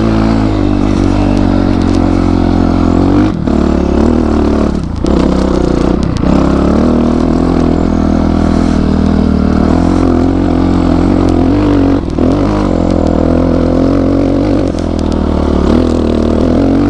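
Motorcycle engine running under load while riding off-road, holding a steady pitch with a few brief drops in throttle, around 3, 5, 6 and 12 seconds in.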